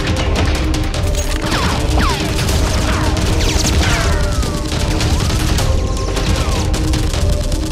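Dubbed rapid-fire gunfire sound effects over background music, with a few falling whistling sweeps in the middle.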